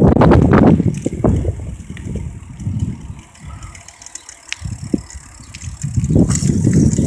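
Low rumbling wind and road noise on the microphone of a moving bicycle. It drops away for a few seconds in the middle, where a few light clicks are heard, and comes back loud near the end.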